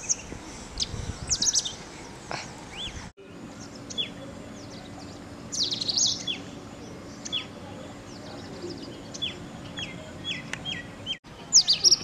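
Male Indian robin calling: short, sharp chirps that fall quickly in pitch, repeated at irregular intervals. The sound drops out briefly twice, at about three seconds and near the end.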